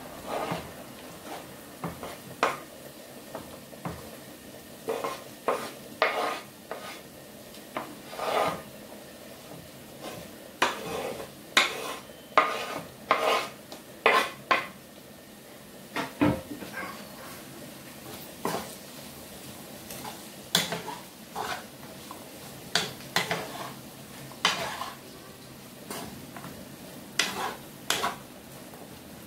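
Wooden spatula scraping chopped bell peppers off a wooden cutting board into a frying pan and stirring them into the frying onions: irregular scrapes and knocks against the pan over a faint steady sizzle.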